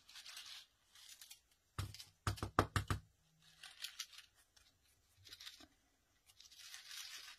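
A handmade shaker gift tag being shaken by hand: loose glitter and heart confetti rattling inside the foam-taped window in repeated swishes, about one a second, with a quick run of loud knocks about two seconds in.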